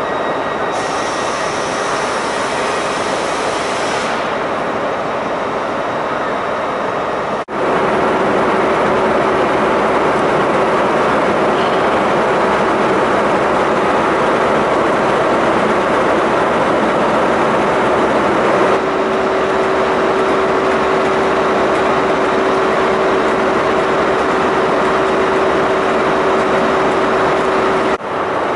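Class 43 HST power car's diesel engine idling at a standstill, a steady heavy mechanical running with a constant whine over it after the first few seconds. The level jumps abruptly a couple of times where the footage is cut.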